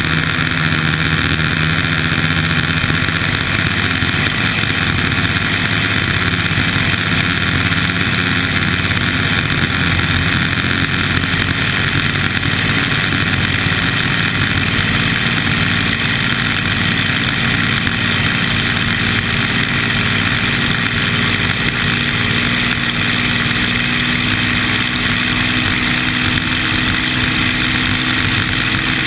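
Vintage hydroplane race boat's engine running hard at speed, heard from on board, a loud steady drone mixed with rushing wind and spray noise. The engine note shifts slightly near the end.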